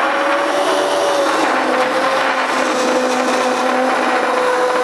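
Handheld immersion blender running continuously in a bowl of chunky tomato sauce, puréeing it smooth. The motor gives a steady whine.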